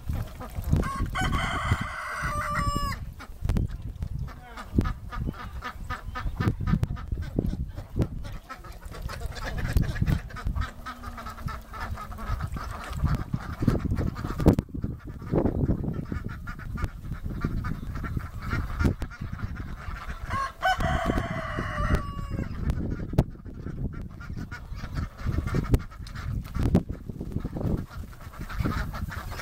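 A flock of ducks quacking and chattering continuously, with a rooster crowing twice, about a second in and again about 20 seconds in.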